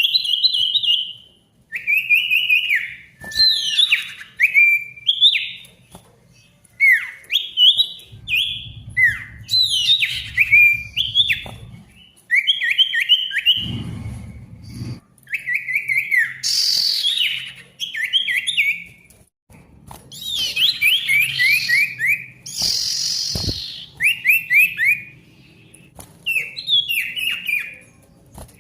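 A sirtu, a songbird kept by Indonesian bird hobbyists, singing busily: rapid runs of short whistled notes that each slur downward, repeated phrase after phrase with brief pauses, mixed with a few harsh, rasping notes.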